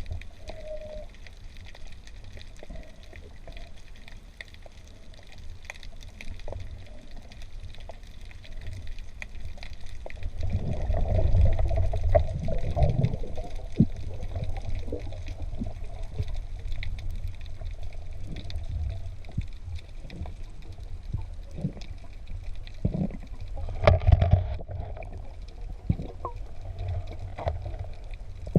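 Water noise heard through an underwater camera housing: a steady low rumble with scattered faint clicks, swelling louder for a few seconds about ten seconds in and briefly again near the end.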